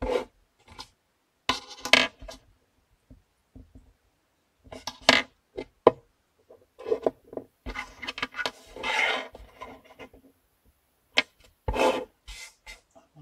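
Scratchy rubbing and rustling close to the microphone, coming in irregular bursts of up to about a second with quiet gaps between them.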